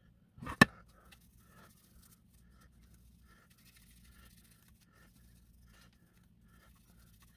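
Cloth rubbing polish over the lacquer-painted plastic body of a model car: faint, short rubbing strokes repeating two or three times a second. About half a second in there is a single sharp knock, the loudest sound.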